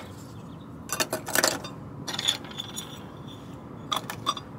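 Small rusty metal artifacts, an old film canister among them, clinking and knocking as they are picked up and set down on a board. Short light clicks come in three small clusters, one with a brief metallic ring.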